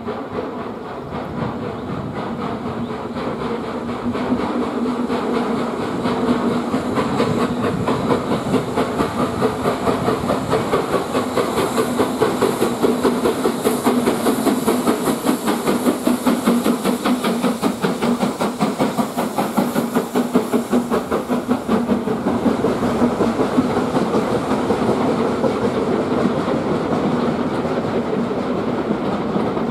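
Steam locomotive working a train of coaches past, its exhaust beating in a fast steady rhythm while the coach wheels clatter over the rail joints. The sound grows louder from about five seconds in as the train comes past.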